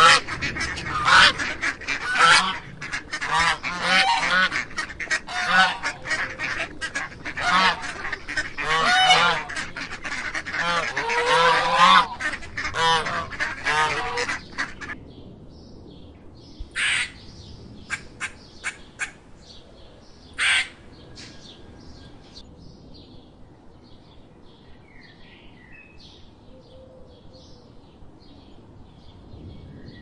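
A flock of flamingos honking: many loud, goose-like calls overlapping for about the first fifteen seconds. Then it drops to a quiet outdoor background with faint chirps and two short, sharp calls.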